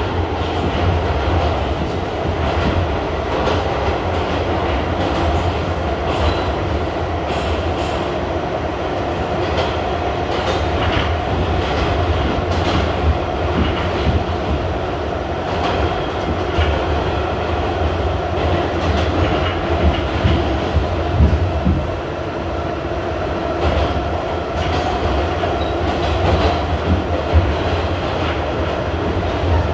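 R68 subway car running at speed through a tunnel, heard from inside the car: a steady low rumble with wheels clicking over rail joints and scattered sharper knocks.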